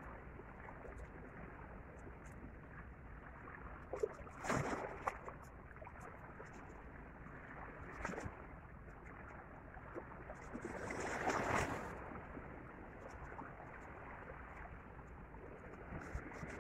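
Small sea waves washing and lapping against shoreline rocks. There is a short louder wash about four and a half seconds in and a longer swell just past the ten-second mark.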